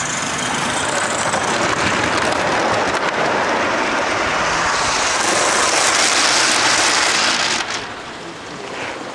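Live-steam garden railway train hauled by an Aster C57 locomotive running past: a steady rushing hiss with the rolling of wheels on rail, growing louder and brighter about five seconds in, then falling away sharply near the end.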